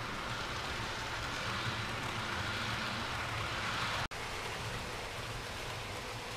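Model railway trains running on the layout's track: a steady rolling rumble of wheels on rail and locomotive motor, swelling as a diesel locomotive and its coaches pass close by. The sound cuts out for an instant about four seconds in, then the rumble carries on.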